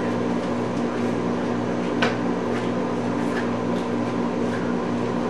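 Steady low mechanical hum, with a few faint light clicks, the clearest about two seconds in.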